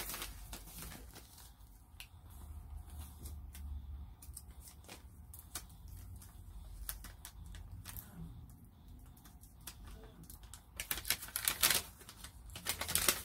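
Wrapped candy and a treat bag being handled: scattered small clicks and crinkles as candy is picked up and put into the bag, busier near the end.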